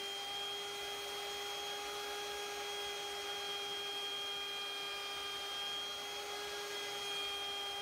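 Table-mounted router running steadily at full speed with a high, even whine while a round-over bit routes the edge of a round hardwood disc.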